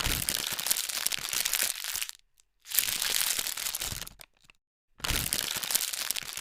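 Package wrapping being handled and opened, crinkling and crackling in three bursts with short silent gaps between them.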